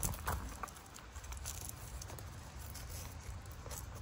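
Soft rustling and light clicks of hands handling a fabric frame bag and its strap against the e-bike frame, with a few clearer clicks in the first second.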